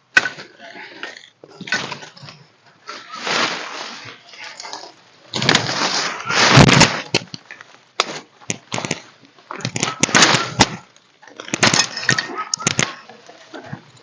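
Irregular bursts of rustling and sharp cracking, with a heavier knock or crunch around the middle.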